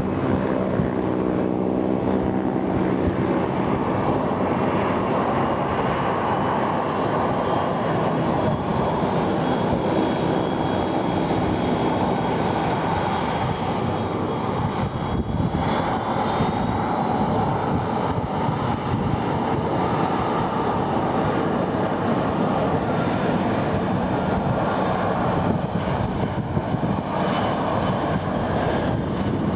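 Boeing 737-800 airliner's twin CFM56-7B turbofan engines on a low flying-display pass: a loud, steady jet rumble, with a thin high whine that slowly rises in pitch during the first half.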